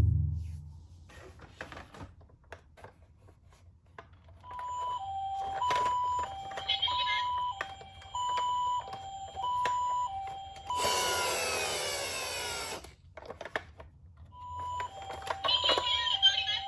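Toy ambulance's electronic two-tone siren sounding the hi-lo 'pee-po' of a Japanese ambulance, its notes switching about every half second. It breaks for about two seconds of harsher electronic noise, stops briefly, and starts again near the end. Light clicks and knocks of the toy being handled come through throughout.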